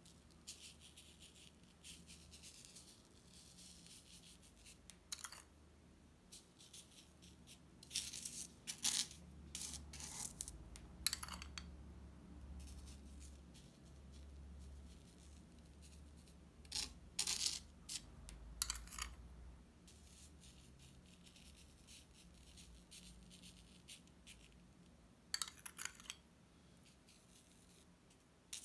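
Metal teaspoon scraping and clinking against a small ceramic bowl as it scoops sand, and rubbing sand onto a sticky sand-art card, in short, scattered, quiet scrapes. A faint low hum runs underneath.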